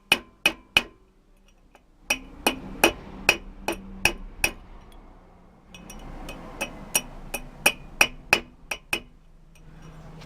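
Hammer tapping metal on metal, seating a new rear wheel bearing part all the way into the hub. Sharp ringing taps about two a second, in three runs with short pauses between.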